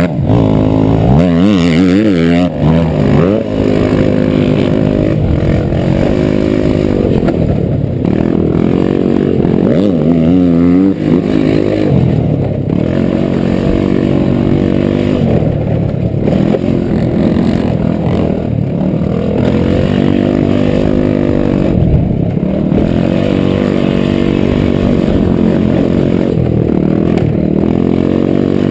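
Honda Elite 80cc scooter's single-cylinder engine running hard on a dirt track, its revs rising and falling again and again with the throttle, wavering quickly at a couple of points.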